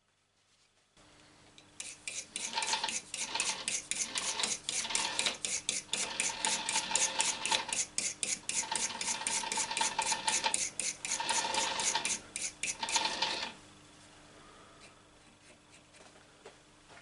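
Metal scraping in quick, even strokes, about five a second, over a steady machine hum. The scraping stops a few seconds before the end, leaving the hum running.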